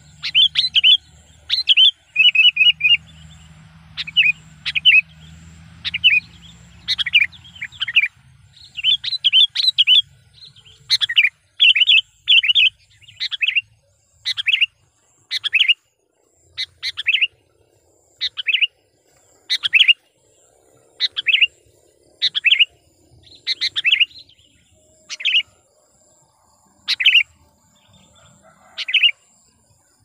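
Sooty-headed bulbul (kutilang) calling: short chirping phrases repeated over and over, coming in quick clusters at first and then one phrase about every second and a half.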